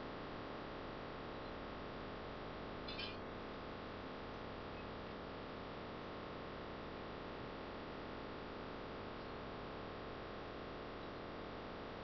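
Faint steady background hiss of the recording's microphone and room, with one brief faint sound about three seconds in.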